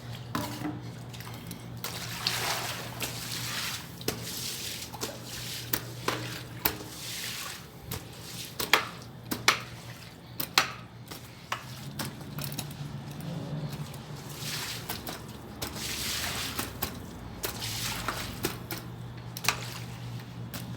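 Water from a garden hose spraying and splashing onto paved ground to wash off sandstorm dust, with irregular sharp splatters. A steady low hum runs underneath.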